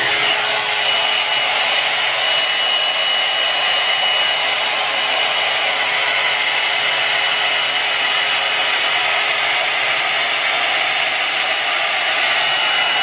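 Hot-air brush (a hair dryer with a round bristle brush head) blowing steadily as it is drawn through long hair: a continuous rush of air with a thin, steady high whine from its motor.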